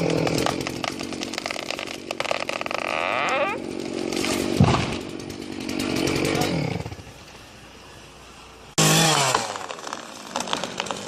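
Chainsaw running and revving up and down, with a sharp knock about halfway. It drops back near two-thirds through, then comes in loud again and winds down in pitch near the end.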